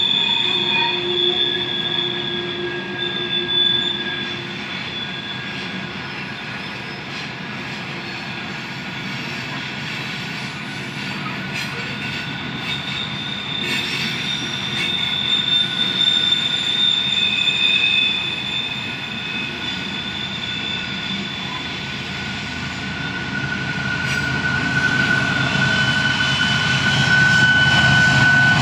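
Loaded grain covered hopper cars rolling past, their wheels squealing in steady high-pitched tones that come and go over a continuous rumble. Near the end the rumble grows louder as the rear helper diesel locomotives approach.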